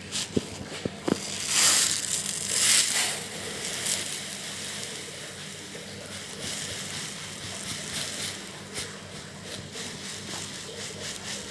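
Fine granules pouring in a stream onto a metal baking tray, a hissing patter that is loudest from about one and a half to three seconds in, then carries on softer with small ticks. A few sharp clicks come in the first second.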